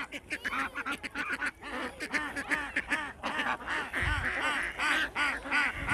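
Ducks quacking: a rapid run of short, overlapping calls from several birds.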